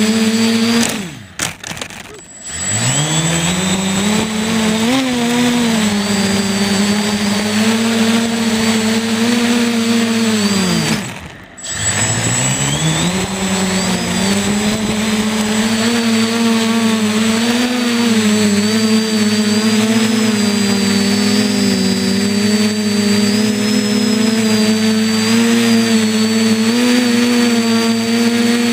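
Electric motors and propellers of a radio-controlled quadcopter, heard through the camera mounted on it: a steady, wavering whine of several tones. Twice, about a second in and again near the middle, the motors throttle almost to nothing and spin back up with a rising pitch.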